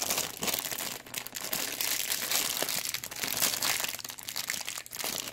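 Thin clear plastic packaging bags crinkling and crackling continuously as they are handled and turned over.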